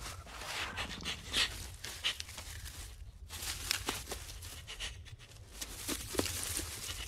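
An animal scrabbling and digging in its burrow: irregular short scrapes and scuffles of earth and snow, with a few sharp clicks.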